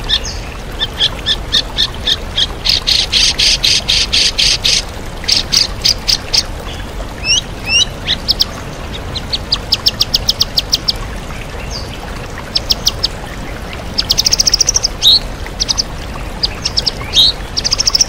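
White-rumped shama (murai batu) singing loud, fast runs of repeated sharp notes and trills, mimicking the calls of other birds, over the steady rush of a waterfall.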